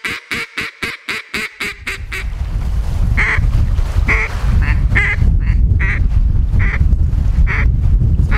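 Single-reed Echo duck call blown in a quick run of about eight quacks over the first two seconds. Then a steady low wind rumble on the microphone, with single duck quacks about once a second over it.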